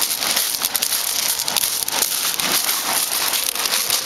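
Shingle pebbles crunching and rattling underfoot, a dense run of small irregular clicks over a steady hiss of small waves washing on the shingle.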